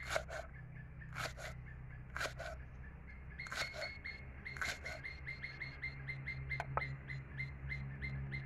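Large knife slicing through leeks onto a wooden chopping board: five crisp chops about a second apart, then the chopping stops. A fast, even chirping runs behind it, plainer from about three seconds in.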